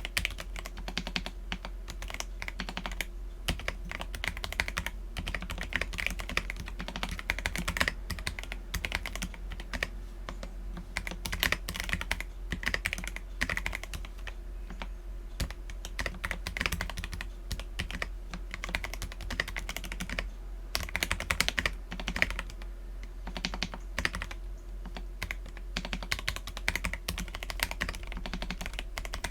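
Continuous fast typing on an Akko PC75B mechanical keyboard with lubed Akko Jelly Black linear switches and Cherry-profile PBT keycaps. Dense, irregular keystrokes run without a break.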